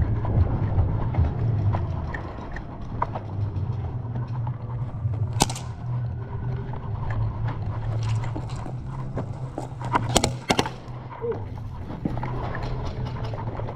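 Player's movement noise: a low rumble with scattered knocks and rattles. Sharp cracks come once about five seconds in and twice in quick succession about ten seconds in.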